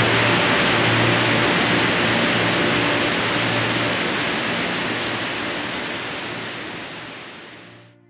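Steady rushing of a waterfall pouring into a pool, with faint held music tones underneath, fading out over the last few seconds.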